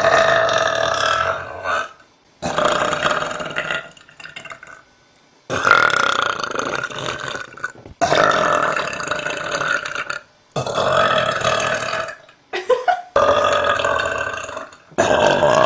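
A young woman belching: a run of about six long, loud burps, each lasting one to two seconds or more, with short pauses between them.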